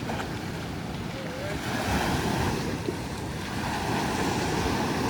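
Ocean surf washing onto the beach: a steady rush that swells and eases, with wind on the microphone.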